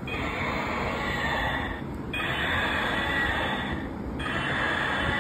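Battery-powered toy T-rex playing its electronic sound effect through a small speaker: a harsh, noisy roar repeated about every two seconds with short breaks between.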